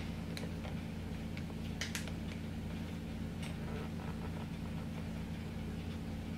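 A few faint clicks and knocks of a plastic welding helmet being put on and adjusted on the head, over a steady low hum.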